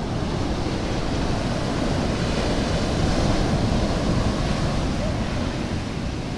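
Heavy monsoon surf breaking and washing up a sandy beach, a steady rush of high waves that swells a little about three seconds in, with wind rumbling on the microphone.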